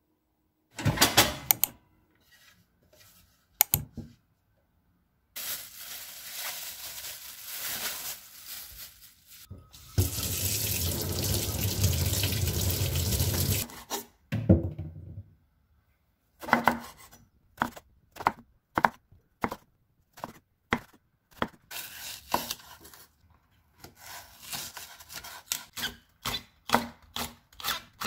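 A kitchen tap runs for several seconds. Then a chef's knife slices vegetables on a wooden cutting board: a long run of quick, irregular knocks as an eggplant and a green onion are cut.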